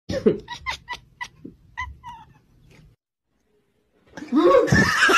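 Cats meowing: a quick run of short, high cries over the first few seconds, then after a brief silence a louder stretch of wavering calls that rise and fall in pitch.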